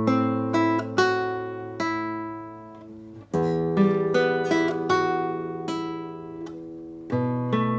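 Acoustic guitar music: plucked notes ringing and fading over held low bass notes.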